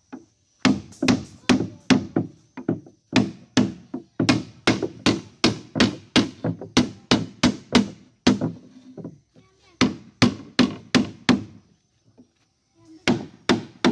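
Repeated hammer blows nailing the wooden side of a boat hull: sharp wooden knocks about three a second, in runs broken by short pauses.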